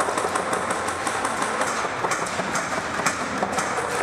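Airsoft guns firing: an irregular patter of sharp clicks and pops, several a second, over a steady din.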